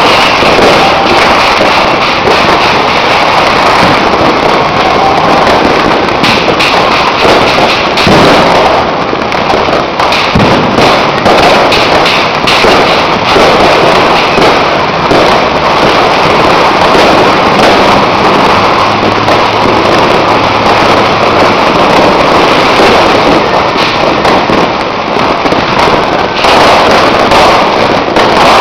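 Very loud, dense fireworks and firecrackers: continuous rapid crackling and bangs overlapping with no break.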